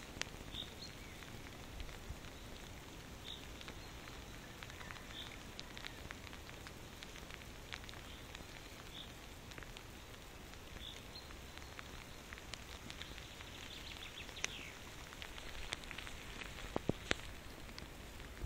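Light rain falling, a faint steady patter with scattered drops ticking and a few sharper clicks near the end. Faint short high chirps come back every second or two over it.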